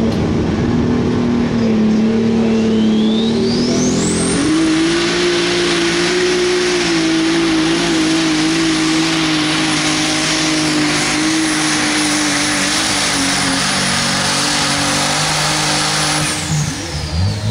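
Allis-Chalmers D21 light super stock pulling tractor's turbocharged diesel engine making a pull at full throttle. A turbo whine climbs steeply over the first few seconds as the revs step up, then both hold high and steady down the track. Near the end the whine falls away and the engine drops off as the tractor shuts down.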